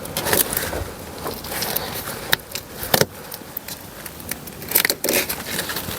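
Irregular plastic clicks, knocks and scrapes as a car's inner door trim and its fittings are worked by hand. There is a sharp click about three seconds in and a cluster of knocks around five seconds.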